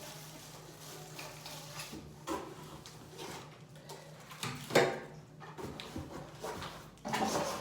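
Vacuum cleaner box and packaging being handled during unboxing: scattered rustling and small knocks, with a sharper knock about five seconds in. A faint low hum runs underneath.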